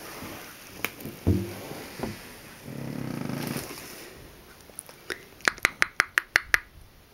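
Sleeping newborn's noisy breathing: a short grunt, then a snore-like breath about a second long. Near the end, a quick run of about seven sharp clicks, roughly six a second.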